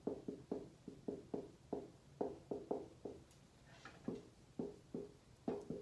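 Dry-erase marker writing on a whiteboard: a run of short strokes, about three a second, with small gaps between words.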